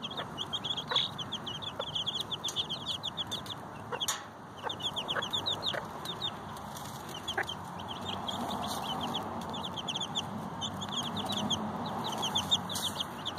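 Cochin bantam hen's chicks peeping continuously, many short high peeps a second, with brief pauses, over the hen's soft low clucking as she scratches and feeds them.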